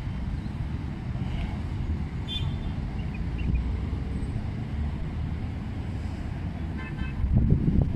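Steady low rumble of city road traffic, swelling louder near the end.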